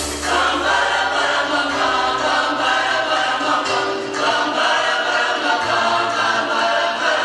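Youth choir singing together, many voices in held chords.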